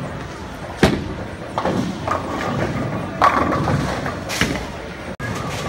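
A bowling ball is released and thuds onto the lane, rolls, and strikes the pins with a crash about two and a half seconds later, over the steady rumble and clatter of other lanes in play.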